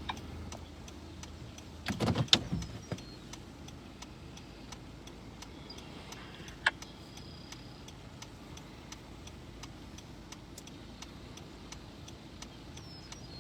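Steady road and engine noise inside a moving car, with a short cluster of knocks and clatter about two seconds in and a single sharp click near the middle. A faint, even ticking runs underneath.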